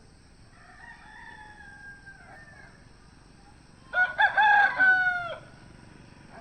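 Rooster crowing twice: a fainter crow about half a second in lasting around two seconds, then a much louder crow about four seconds in lasting about a second and a half.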